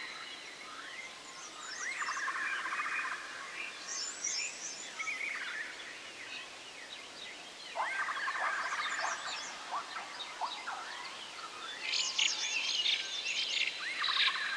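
Forest ambience of several birds chirping and singing in short trilled phrases every second or two, busiest near the end, over a steady high thin tone.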